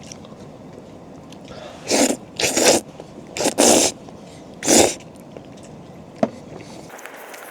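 A person slurping noodles in about five short, sharp, noisy bursts between about two and five seconds in, with a single click about a second later.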